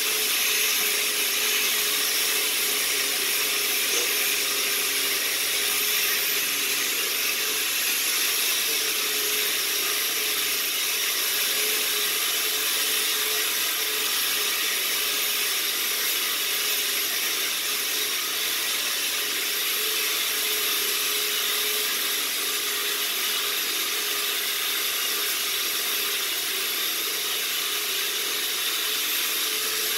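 Rotary sander-polisher fitted with a wire brush, running steadily with a constant motor tone while the brush scours a new wood beam, stripping out the softer grain to give it a weathered texture.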